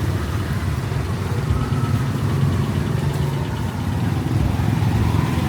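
Street traffic: a steady low rumble of motor vehicle engines, motorbikes and cars, running at a constant level.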